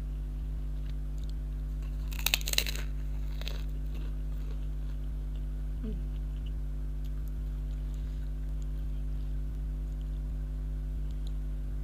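A person biting and chewing crunchy food close to the microphone: a quick run of loud crunches a little over two seconds in, another weaker crunch about a second later, then only faint chewing clicks. A steady low electrical hum runs underneath.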